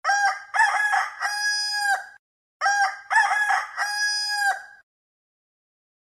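A rooster crowing twice, each crow a run of short syllables ending in a long held note; the second crow starts about two and a half seconds in.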